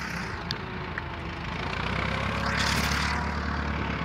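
An engine running steadily off to the side, with a brief rushing noise that swells and fades about two and a half seconds in.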